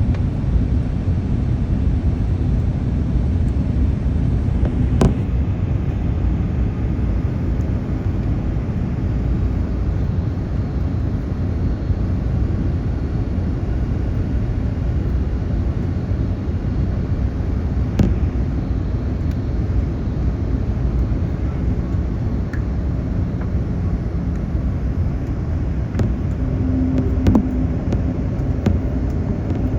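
Steady low rumble of a Boeing 787's engines and airflow heard from inside the cabin, with a couple of faint clicks along the way.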